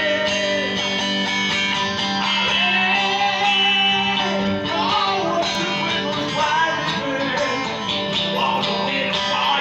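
Music played loudly through a large PA sound system during a sound check: a bending, guitar-like lead melody over a steady held low note, continuous throughout.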